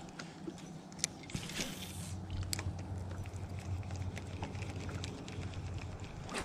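Scattered clicks and rustles of gear being handled close to the microphone, with one longer hissy rustle about one and a half seconds in, over a low steady hum.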